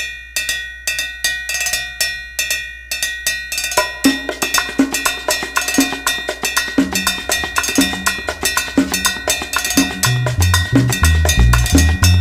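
Music: a drum and percussion beat that builds as more parts join, with a deep bass line coming in about ten seconds in.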